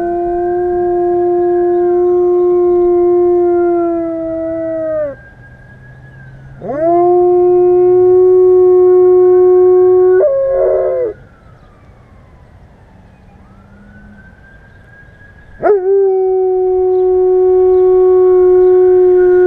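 A German Shepherd howling: three long howls, each held at a steady pitch and then sliding down as it ends. The second howl breaks into a wavering yodel just before it stops.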